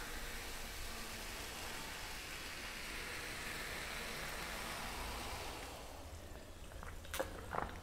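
Cola poured from a plastic bottle into a glass mug, a steady fizzing pour that fades out about six seconds in. A few short clicks follow near the end.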